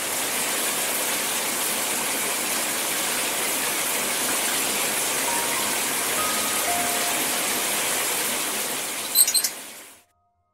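Shower spray running steadily onto hands and the floor: an even rush of falling water. About nine seconds in there are a few sharp clicks, then the water sound fades out and stops.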